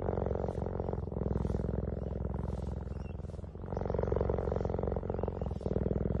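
Cheetah purring steadily while its head is stroked, a rapid, even vibration that swells and eases with each breath, louder for a stretch around four seconds in.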